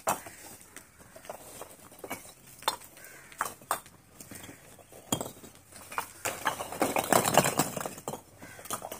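Fired clay bricks clinking and knocking against each other as they are pulled from a kiln stack and piled onto a wire carrying sling: single sharp clacks every second or so, then a denser, louder rattle of bricks about seven seconds in.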